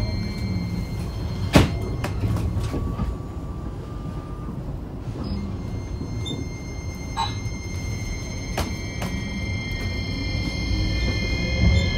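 Hiroden 5100-series low-floor tram (car 5108) running, heard from inside the car: a steady rumble with humming tones, a few sharp knocks (the loudest about a second and a half in), and a tone slowly rising near the end.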